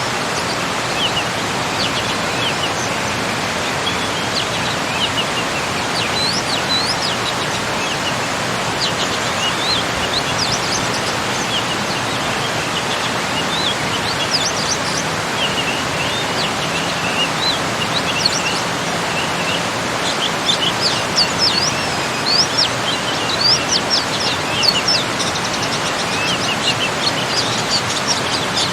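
Steady rush of a small garden waterfall, with small birds chirping over it; the chirping gets busier in the last third.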